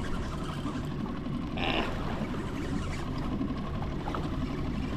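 Wind rumbling on the microphone and choppy water against a fishing kayak's hull, with a short hiss-like rasp a little under two seconds in.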